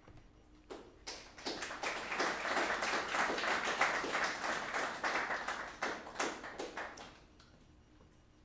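A group of people clapping in applause. It starts about a second in, builds, and dies away about seven seconds in.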